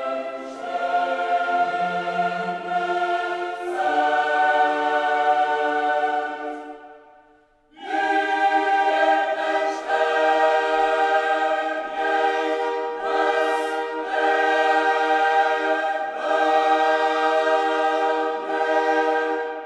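Choral music: a choir singing long held chords. The piece fades out about seven seconds in, and new choral music starts about a second later.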